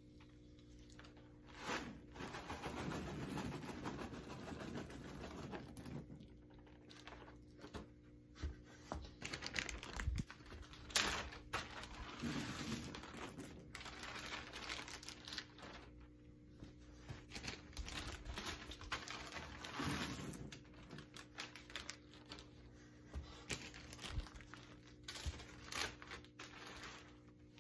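Popcorn bags crinkling as they are handled and shaken out, with loose popcorn pouring and pattering onto a cushioned couch seat, in irregular spells. A sharp knock stands out about eleven seconds in.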